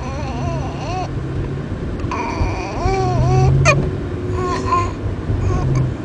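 Baby fussing in several short, whimpering cries, with a single sharp hiccup a little past halfway.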